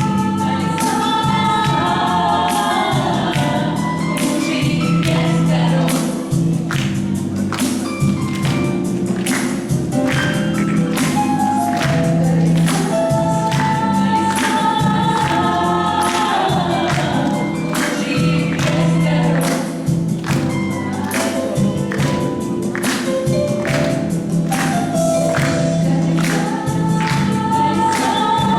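Background music: a song with several voices singing together over a steady percussive beat.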